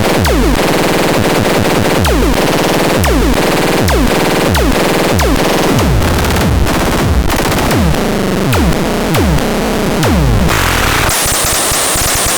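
Electronic noise synthesizer making harsh, distorted noise cut by a repeating downward pitch sweep, about three sweeps every two seconds. Near the end it switches to a high, hissing noise.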